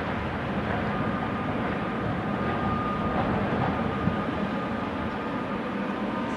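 Tram running along street track toward the listener: a steady rumble of wheels on rail, with a thin high whine that sets in about a second in.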